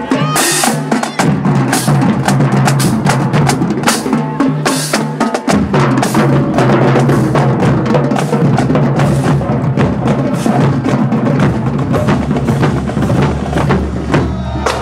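Percussion music from a drill team: drums, including snare and bass drum, playing a steady stream of sharp strikes over sustained low tones.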